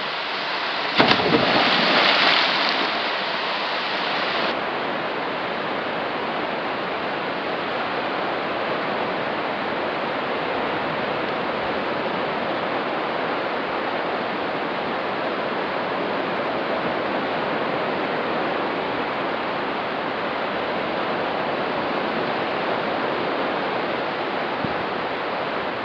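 Rushing water of a natural rock water slide, with a loud splash into the pool about a second in. After a cut a few seconds in, a steady, even rushing noise with no words runs on.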